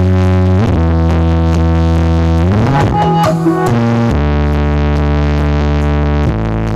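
Large sound system playing synthesizer music in a pre-show sound check. It plays held, deep bass-heavy notes that slide from one pitch to the next, with a short run of high blips about three seconds in.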